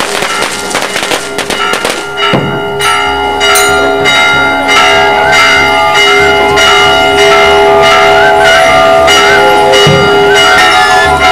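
A large church bell rung by hand, its clapper pulled on a cord so it strikes again and again, each stroke ringing on into the next.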